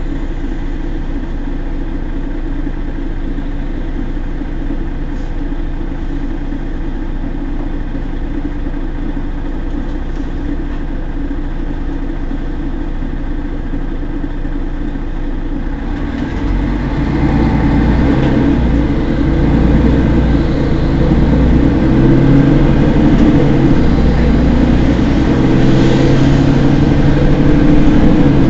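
Mercedes-Benz Citaro G C2 articulated bus's diesel engine idling at a stop, a steady low hum. About sixteen seconds in the sound grows clearly louder and heavier and stays so.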